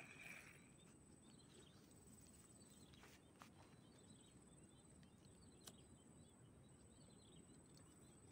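Near silence: faint outdoor ambience by a pond, with faint bird chirps, a steady high insect drone, and a couple of faint clicks.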